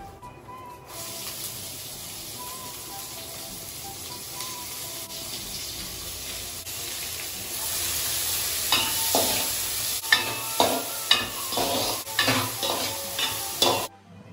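Vegetables cooking in a brass pan on a gas stove with a steady sizzle that grows louder past the middle. In the last five seconds a metal spoon stirs them, clinking sharply against the pan a dozen or so times.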